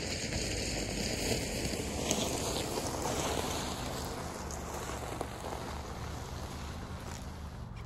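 SUV driving slowly onto a dirt lot and braking, its engine and tyres giving a steady low rumble under a haze of wind noise on the microphone.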